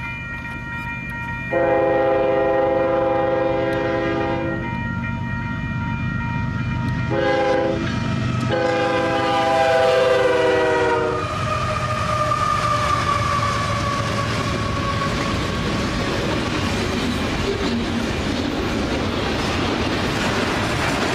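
Union Pacific double-stack freight train passing a grade crossing: the diesel locomotive's air horn sounds a long blast, a short one and another long one, the last dropping in pitch as the locomotives go by, over a steady ringing from the crossing signal. Then the rumble and wheel clatter of the stack cars rolling past at speed.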